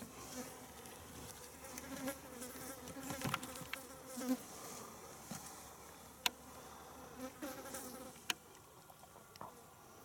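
A flying insect buzzing close by, on and off, fading out after about five seconds, with a few faint sharp ticks, the clearest around six and eight seconds in.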